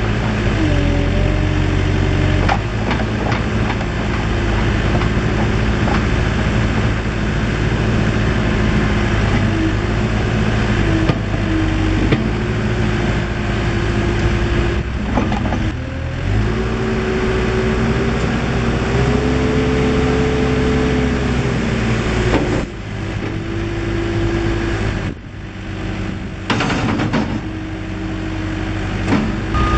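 Case 580 Super M backhoe loader's diesel engine running, its speed rising and falling several times as the machine is worked. A reversing beeper starts right at the end.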